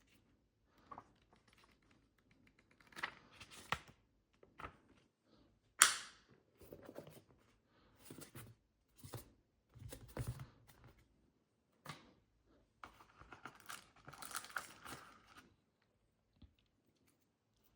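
Keyboard packaging being handled and opened: a series of rustles and scrapes, with a sharp tearing sound about six seconds in.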